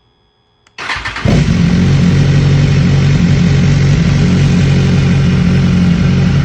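2013 BMW S1000RR's inline-four engine cranked by the starter for a moment, catching just over a second in and then idling steadily. It has just been refilled with fresh oil and a new filter, and is run to circulate the oil before the level is rechecked.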